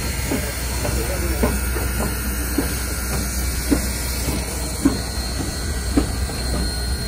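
Santa Maria Valley No. 205 steam locomotive moving slowly past, with a steady hiss of steam over a low rumble and a sharp clank about once a second.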